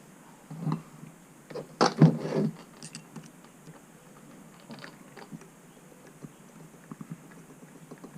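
Hand work on metal parts of an engine clutch assembly: a few knocks and a louder cluster of clunks about two seconds in, then a run of faint light ticks and clicks.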